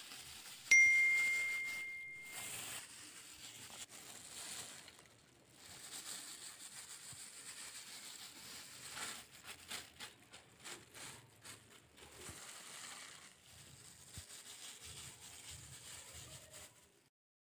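A single bright bell ding, the subscribe-bell notification sound, about a second in, ringing for about two seconds as it fades. After it come faint soft rustles and patters as chopped spring onion, coriander leaves and chilli flakes are scattered by hand onto rolled-out paratha dough.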